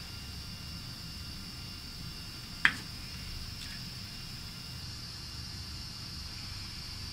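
Steady fan hum and hiss with a thin high whine from a desktop computer starting up, broken by a single sharp click about two and a half seconds in.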